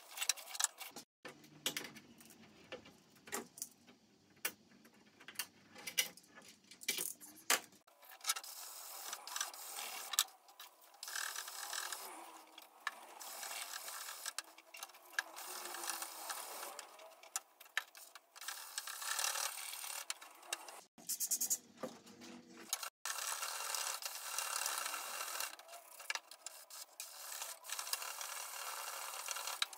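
Abrasive sponge rubbed by hand over the wet clear coat of a carbon fiber fender: a scratchy rubbing in repeated strokes, with scattered clicks and knocks through the first several seconds.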